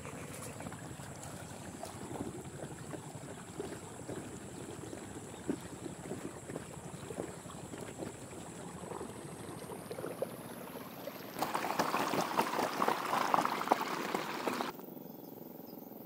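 Irrigation water flowing and gurgling along a narrow field channel. About eleven seconds in it grows louder and more splashy for a few seconds, then drops off abruptly to a quieter, steady flow.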